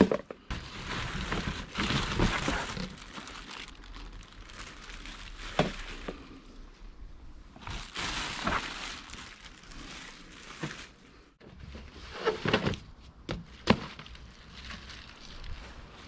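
Plastic wrapping and foam packing sheet rustling and crinkling in irregular bursts as lawnmower parts are lifted out of a cardboard box. A few sharp knocks come from parts bumping the box.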